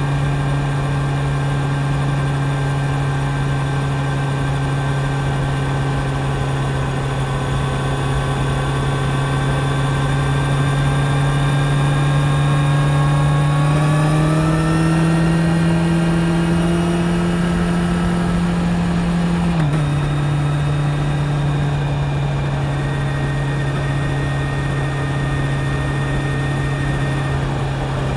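Kawasaki Z900 inline-four engine running under way, heard from the rider's seat. Its note climbs slowly, rises more quickly about halfway through as the bike accelerates, holds there, then drops suddenly about two-thirds of the way in and settles back to a steady cruising note.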